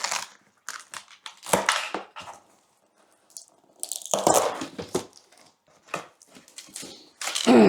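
Cardboard box and packing material being opened and handled: irregular bursts of crinkling, scraping and tearing with short quiet gaps.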